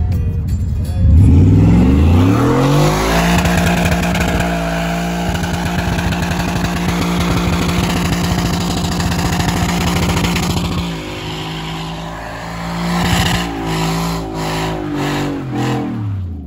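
Car engine revving up hard about a second in and holding at high rpm in a burnout, the spinning rear tyre making a loud squealing hiss. Near the end the revs drop, blip up and down a few times, then fall away.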